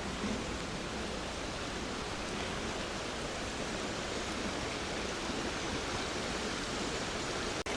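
River water rushing steadily, an even wash of noise. It drops out for a split second near the end.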